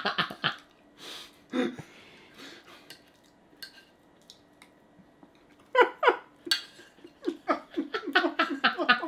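A few light clicks and scrapes of a fork on a plate. Then laughter breaks out over the last few seconds.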